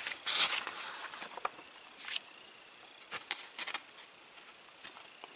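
Book pages being handled and turned: a rustle of paper at the start, then a few light ticks and rustles. A faint steady high tone runs underneath from about two seconds in.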